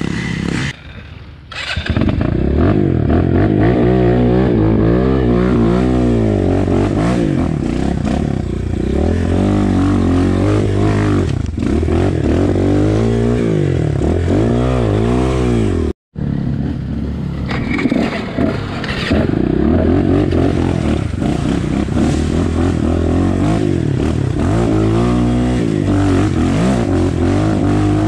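Dirt bike engine revving up and down over and over as it is ridden on an off-road trail, with a brief dip about a second in and a sudden break about halfway through.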